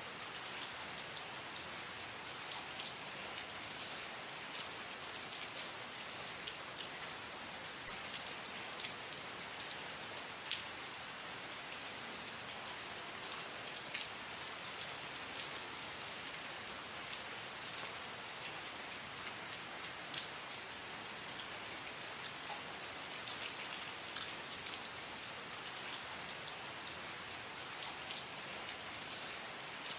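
Steady rain falling, an even hiss of rainfall with many individual drops pattering on a surface.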